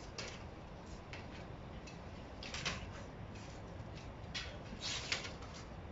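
A person climbing down a metal ladder: short scrapes and taps of shoes and hands on the rungs with clothing rustling, about six of them, irregularly spaced, over a steady low rumble.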